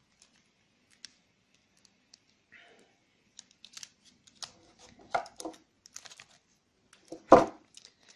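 Handling of silver bars, coins and their packaging: scattered small clicks and rustling, with one louder knock about seven seconds in.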